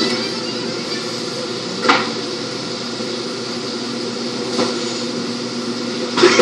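Steady hum of kitchen machinery, with a few brief noises; the loudest, near the end, comes as a plastic squeeze bottle is pressed to dispense sauce.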